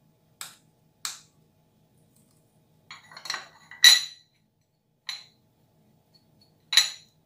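Glass spice grinder filled with cumin seeds clicking and clinking in a handful of separate sharp knocks as its top is turned to tighten the grind setting; the loudest clink comes about four seconds in.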